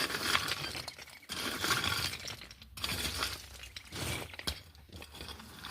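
A hand tool scraping and chopping through soil and grit while weeding: several short gritty strokes, roughly one a second.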